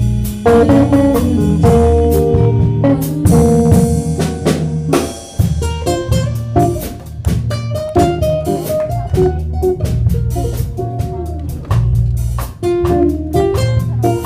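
Live band playing: acoustic and electric guitars over a drum kit keeping time.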